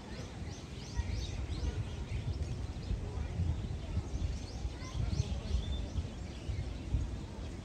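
A small bird chirping in two quick runs of short, high, falling notes, about half a second in and again near the five-second mark, over a low steady rumble.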